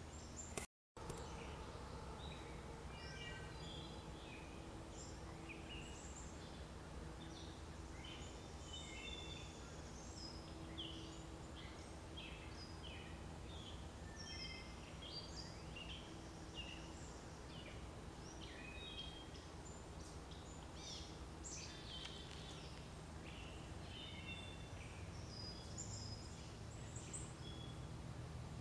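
Faint birdsong from several birds, many short chirps and trills, over a steady low hum. The sound cuts out completely for a moment about a second in.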